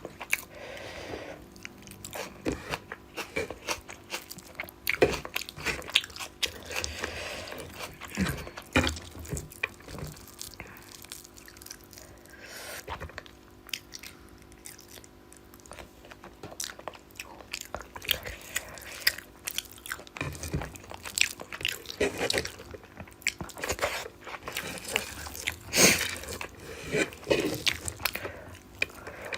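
Close-up eating sounds of rice and fish curry: chewing, biting and mouth smacks in an uneven run of short clicks, over a faint steady hum.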